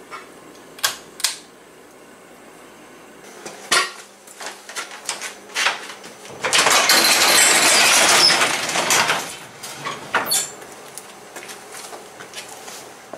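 A couple of sharp clicks about a second in, from a shop light's pull-chain switch, then scattered knocks of handling. About halfway through, a sectional garage door is raised by hand: a loud, noisy run lasting about three seconds.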